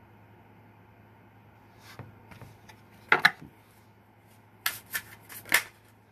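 Tarot deck shuffled by hand: a quiet start, then short crisp card snaps and rustles about two and three seconds in, and a quick run of them near the end.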